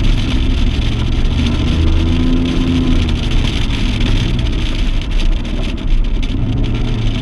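Outboard motor of a Stratos 201 Evolution bass boat running steadily under way, under a loud, steady rush of wind and water.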